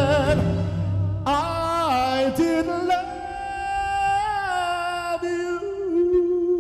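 A man sings a slow love ballad into a microphone over soft accompaniment, drawing the line out in long held notes with vibrato. Near the end a steady held note takes over.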